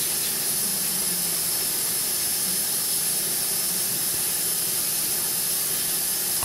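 Steady, even hiss, strongest in the high frequencies, with no breaks or clicks.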